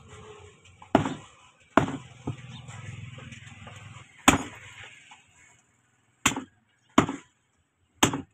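A steel meat cleaver chopping meat and bone on a wooden tree-stump block: about six heavy, sharp chops at uneven intervals. A low hum runs underneath for a couple of seconds in the middle.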